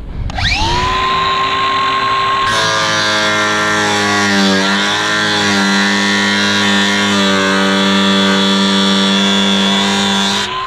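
Cordless angle grinder spinning up with a rising whine, then grinding steel from about two and a half seconds in, its pitch sagging briefly under load a couple of seconds later before it steadies again. The grinding stops right at the end as the motor begins to wind down.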